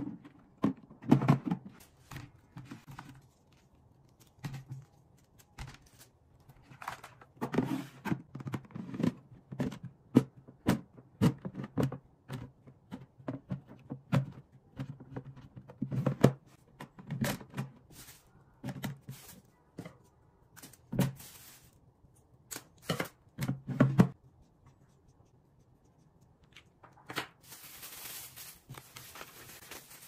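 Clear plastic refrigerator storage bins being handled: a string of irregular taps, knocks and thunks as fruit is set into them and the bins and their lids are moved about on a wooden countertop. After a short lull near the end, a plastic bag starts rustling and crinkling.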